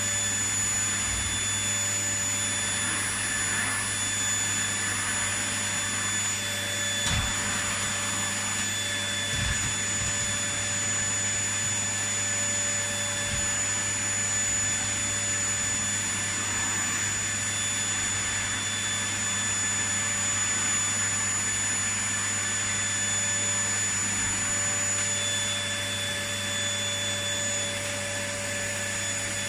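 Household vacuum cleaner running steadily: a constant motor whine over a rushing hiss, with a few brief knocks.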